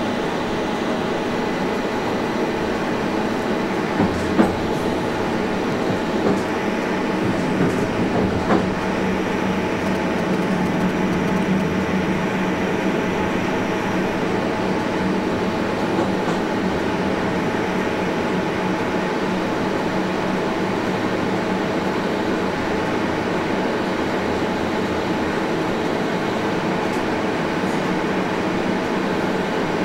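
A train running steadily, heard from the driver's cab, with a few sharp clicks and knocks in the first nine seconds as the wheels cross the station's switches.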